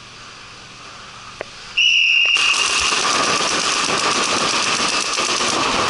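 A high steady start signal sounds for about a second, then paintball markers open fire, several guns shooting rapidly at once in a dense unbroken stream of sharp cracks that runs on to the end.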